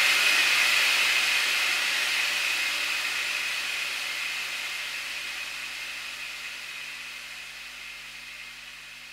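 A steady hiss that starts suddenly and slowly fades away.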